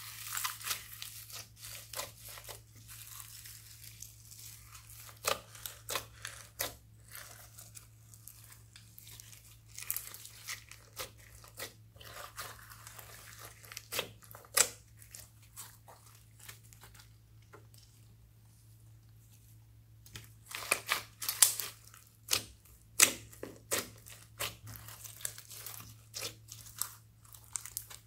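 Homemade slime packed with foam beads and glitter being squished, stretched and kneaded by hand: irregular sticky pops, clicks and crackles. They thin out for a few seconds about two-thirds of the way through, then come thick and fast near the end.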